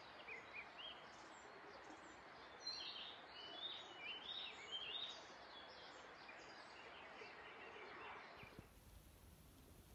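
Faint birdsong from several birds, short chirps and warbled phrases over a steady outdoor hiss, busiest around the middle; the sound cuts off abruptly about eight seconds in.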